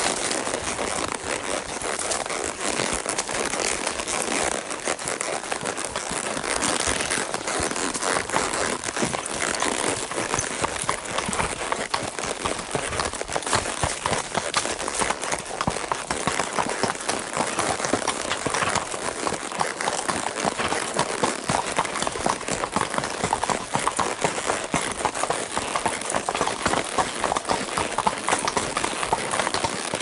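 Horses walking on a dirt and gravel trail: a steady run of hoof clip-clop from the ridden horse and the one just ahead.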